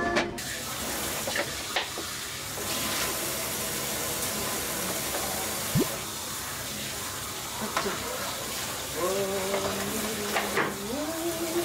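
Kitchen faucet running in a steady stream into a stainless-steel sink during washing up, with a few light knocks in the sink.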